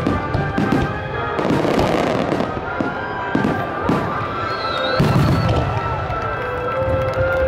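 Aerial fireworks shells bursting in quick succession, a boom every half second to a second, the strongest about five seconds in.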